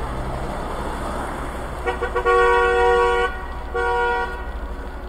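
Car horn honking: a couple of quick taps, then a long honk of about a second and a shorter second honk, sounding a steady two-note chord. A low steady hum runs underneath.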